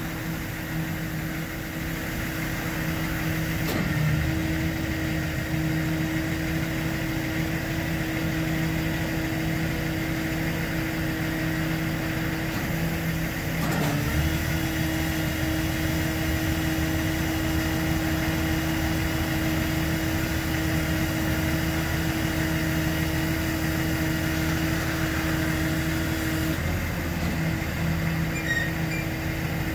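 The tow truck's engine runs steadily, driving the hydraulics that tilt the Trail King TK80HST's hydraulic sliding tail, with a constant mechanical hum. The hum wavers and shifts briefly about 4, 14 and 27 seconds in, as the hydraulic load changes.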